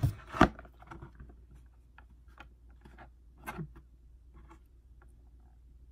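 Cardboard packaging being handled: a small box is pulled out of a shipping box and turned over, giving scattered light taps, scrapes and rustles, with a sharper knock about half a second in and another tap about three and a half seconds in.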